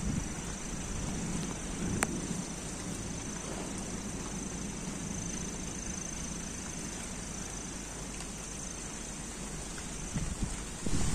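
Steady outdoor ambience in the wet aftermath of heavy rain, with a thin, high, steady whine that stops near the end and a single sharp click about two seconds in.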